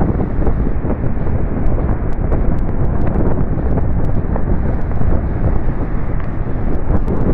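Sea wind buffeting the microphone in a loud, steady low rumble, mixed with the noise of waves breaking on the beach.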